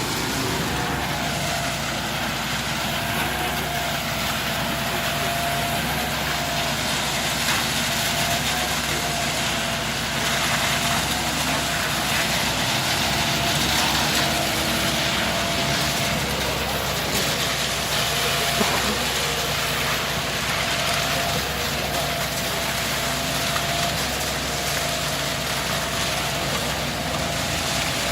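An engine running steadily at an even speed, with a steady whine.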